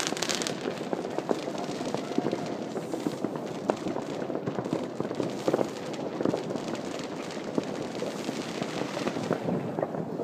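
Many distant New Year's fireworks and firecrackers going off across a city at once, a steady stream of overlapping bangs and crackles.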